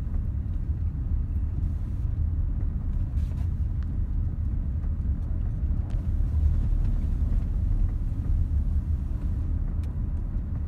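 Steady low rumble of a vehicle driving: engine and road noise.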